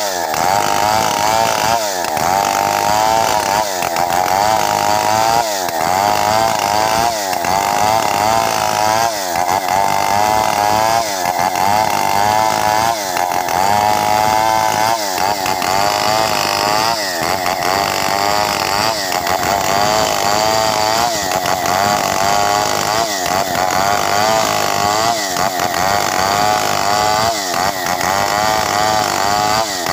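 Stihl 070 two-stroke chainsaw running at full throttle, ripping lengthwise along a log. The engine pitch wavers under the load of the cut, with a brief dip about every second and a half.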